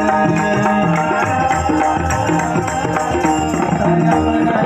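A devotional bhajan ensemble plays an instrumental passage between sung lines: regular hand-drum strokes and a bright metallic jingle over a sustained melodic line.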